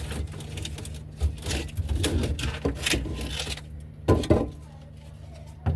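Scraping and rustling of objects being handled during cleaning, then two sharp knocks close together and another near the end.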